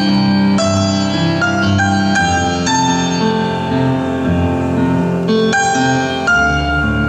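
Dressage freestyle music: an instrumental melody of clear, ringing notes that change about every half second, over held low bass notes.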